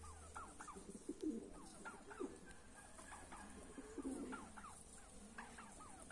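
Several domestic pigeons cooing, with many short calls overlapping, mixed with higher, quick falling chirps.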